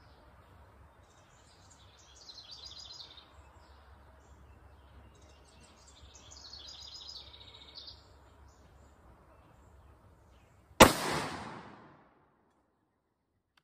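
A single .223 Remington rifle shot about eleven seconds in, a sharp report that rings off over about a second. Before it, birds sing twice faintly.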